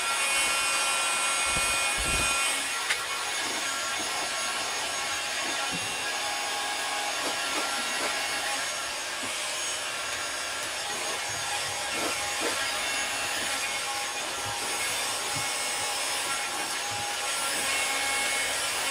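Hot-air blower running steadily, a fan hiss with faint steady whining tones, heating the door's plastic vapour barrier film so its old adhesive will stick again. A few faint knocks and rubs from handling the film.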